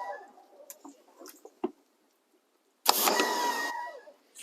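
Pressure washer spraying in short trigger bursts, a hissing spray over a steady motor whine: the first burst fades out just after the start, and a second starts abruptly about three seconds in, runs about a second and fades.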